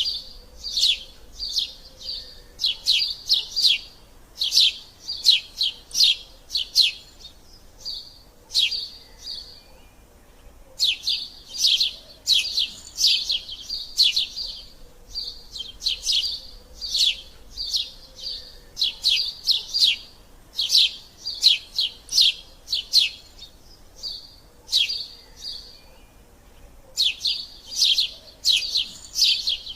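Eurasian tree sparrows chirping: quick runs of sharp, high chirps, several a second, broken by short pauses, in the excited squabbling chatter of sparrows.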